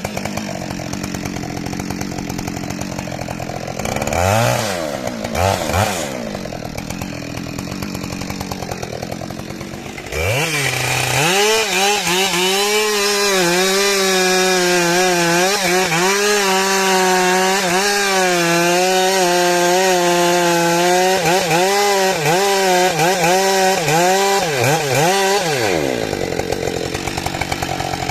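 Small engine idling, revved briefly twice, then held at high revs for about fifteen seconds with the pitch dipping and recovering again and again, before dropping back to idle.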